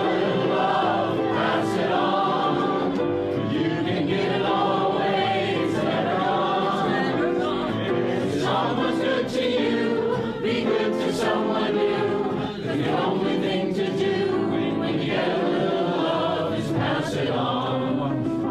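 Live folk-pop song: a man singing with many voices joining in, over strummed acoustic guitar and piano.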